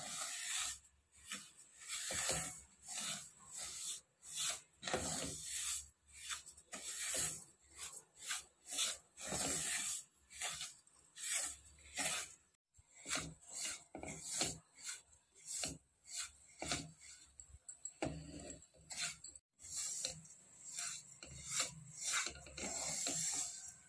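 Wooden spatula scraping semolina around a nonstick pan as it roasts in ghee, in repeated short strokes about one or two a second; the rava is kept moving so it does not burn.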